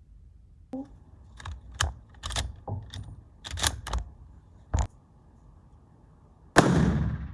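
A series of sharp metallic clicks and clacks over about four seconds, the bolt of a Mannlicher-Carcano bolt-action rifle being worked, then a single loud rifle shot near the end that rings out and fades over about a second.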